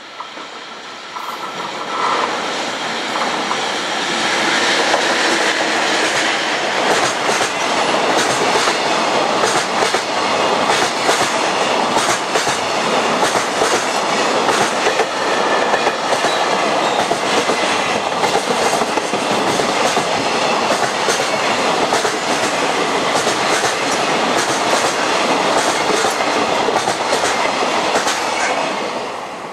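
Freight train of container wagons hauled by an ED76 electric locomotive passing: steady wheel-on-rail noise with clickety-clack of wheels over rail joints. It builds over the first couple of seconds and fades near the end as the last wagons go by.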